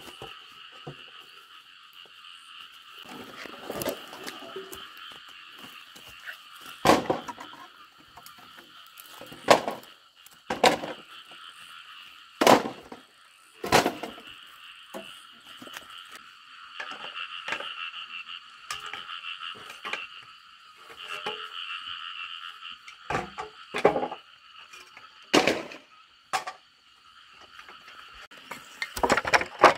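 Corrugated fibre-cement roofing sheets being picked up, knocked together and dropped, giving irregular sharp clatters and knocks every few seconds, a dozen or so in all. Behind them a steady, high animal chorus keeps up throughout.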